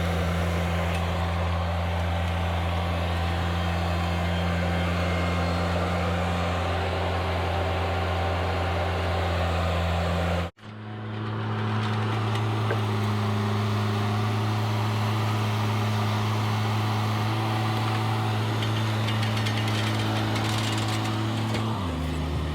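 An engine running at a steady speed. It is cut off abruptly about ten seconds in, followed by a steady engine sound at a slightly higher pitch that drops in pitch and slows near the end.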